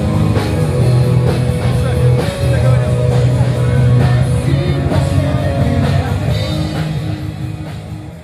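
Loud rock music with singing and a heavy, steady bass, getting quieter near the end.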